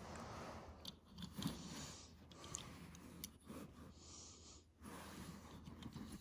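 Faint breaths close to the microphone, coming in noisy stretches of about a second each, with a few light clicks in between.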